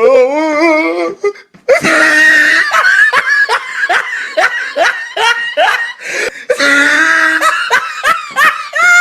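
A person laughing hard, a long run of quick repeated laughs, opening with a wavering, drawn-out vocal sound.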